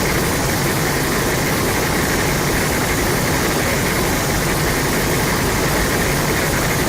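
Steady, dense rushing noise over a low rumble, with no clear tone or rhythm: a film sound effect.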